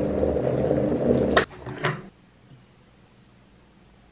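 Electric kettle rumbling as it comes to the boil, then its switch snaps off with a sharp click about a second and a half in, followed by a second, lighter click half a second later.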